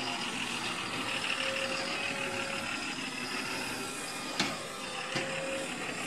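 Tata tipper truck's diesel engine running as the truck drives off over rough dirt ground, with two sharp knocks about four and five seconds in.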